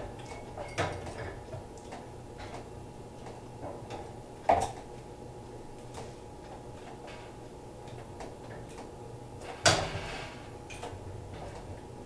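A wooden honeycomb frame being worked over an uncapping bin, giving light clicks and a few sharp knocks, the two loudest about four and a half and nearly ten seconds in, over a steady low hum.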